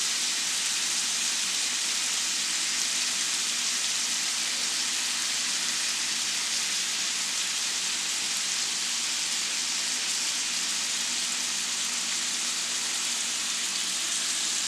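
Seasoned beef burger patties frying in a hot pan, a steady hissing sizzle.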